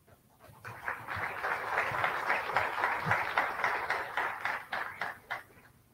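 Audience applause, dense hand-clapping that swells up about a second in, holds steady, then dies away near the end.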